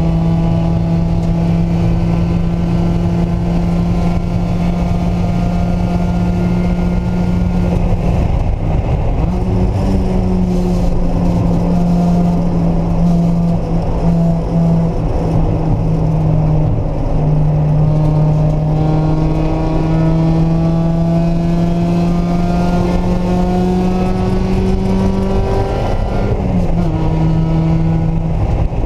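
Mazda Miata's four-cylinder engine running hard on track at a nearly steady pitch that slowly climbs. The note breaks and changes pitch about a third of the way in, again past halfway, and near the end, as the car shifts or lifts. Steady road and wind noise lies under it.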